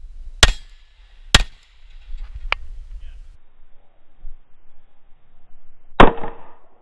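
Gunshots from a 9 mm Glock 43 subcompact pistol: two loud shots about a second apart, a fainter crack a second later, then another loud shot near the end that rings on briefly.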